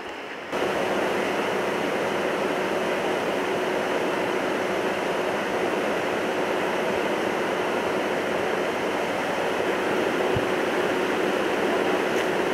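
Wildcat River in flood: a steady, even rush of fast-moving floodwater after heavy storm rain, coming in suddenly about half a second in.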